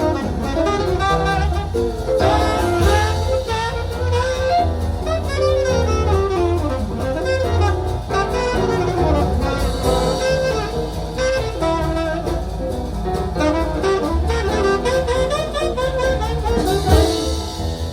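Jazz recording with a saxophone lead over drums and double bass, played from a CD on a hi-fi system.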